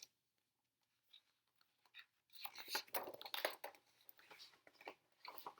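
Faint paper rustling from the page of a picture book being turned, a cluster of short crinkly strokes about two and a half seconds in, with a few lighter rustles near the end.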